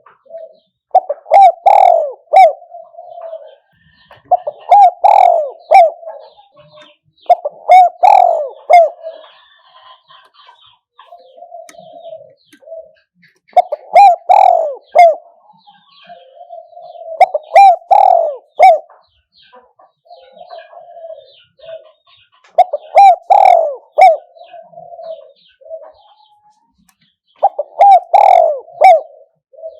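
Spotted dove cooing: a decoy bird's call used to lure wild doves. It gives about seven cooing phrases spaced a few seconds apart, each a short run of coos ending in louder notes, with softer coos between.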